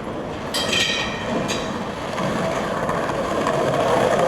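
Skateboard wheels rolling over rough pavement: a steady rumble that grows a little louder toward the end.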